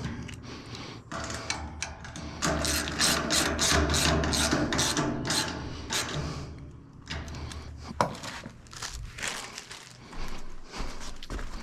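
Hand ratchet wrench clicking in quick runs as bolts are tightened, with one sharp click about eight seconds in.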